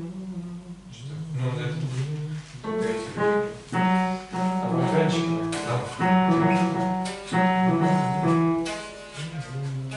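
A man singing a melody in held notes over an accompaniment that includes piano.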